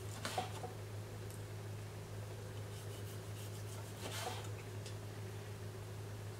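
Chef's knife slicing through a sesame-crusted seared tuna loin on a wooden cutting board: soft crunches of the sesame crust and light taps of the blade on the board. The clearest come just after the start and about four seconds in. A steady low hum runs underneath.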